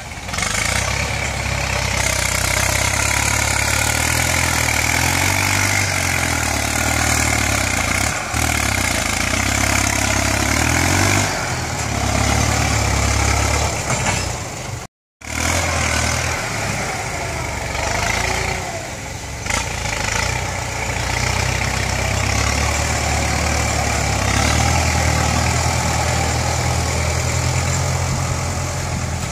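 Kubota tractor's diesel engine working as the tractor pushes and grades soil with its front blade, the engine note rising and falling as it works. The sound drops out for a moment about halfway through.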